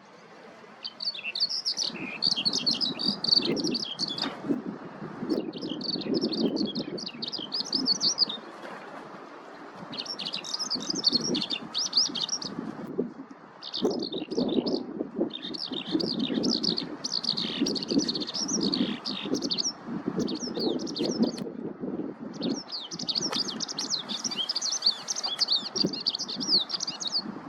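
Eurasian skylark singing: long, rapid, unbroken runs of high warbling and trilling notes in phrases of several seconds, with brief pauses between them. A low rumble sits underneath.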